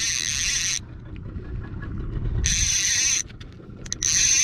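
Fishing reel's ratchet clicker buzzing in three bursts as line is pulled off the reel, over the low rumble of the boat's engine.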